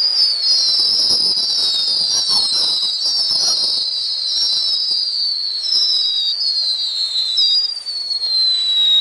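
'Musical mala' whistling firecrackers going off: a run of high whistles, one overlapping the next, each sliding slowly down in pitch. The last one cuts off at the end.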